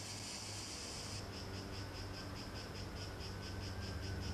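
Crickets chirping in a rapid, even pulse that starts about a second in, over a steady low hum.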